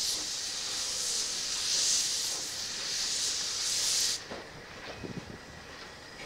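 Small narrow-gauge steam tank locomotive moving off slowly with its cylinder drain cocks open, steam hissing out in slow surges with the piston strokes. The hiss cuts off suddenly about four seconds in, as the cocks are closed, leaving a few light clanks from the running gear.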